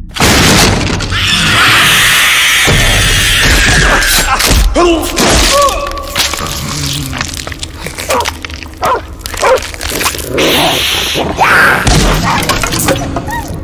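Horror-film sound effects: a sudden loud, noisy crash, then a dense run of thuds and hits mixed with short rising-and-falling animal-like cries, under music.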